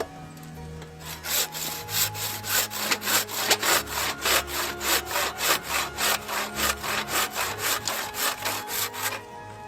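Hand saw cutting through wood in steady back-and-forth strokes, about three a second, starting about a second in and stopping shortly before the end.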